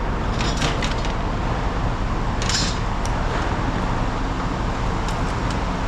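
A diesel engine of yard machinery running steadily, with a few brief rattles over it, about half a second and two and a half seconds in.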